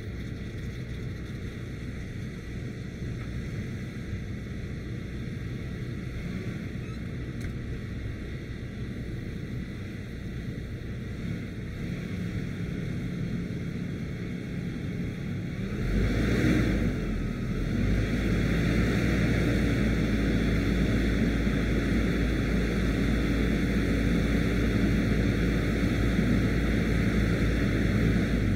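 Peterbilt 579's Paccar MX 12.9-litre diesel engine running at idle, then about halfway through brought up to a higher speed, louder and higher-pitched, and held there steadily.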